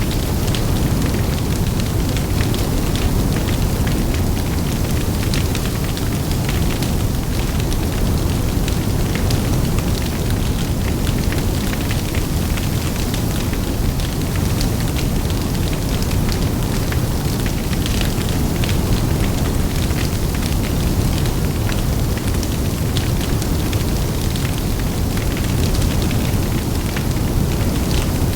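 Large open fire burning: a steady low rush of flames and wind, with many small sharp crackles and pops.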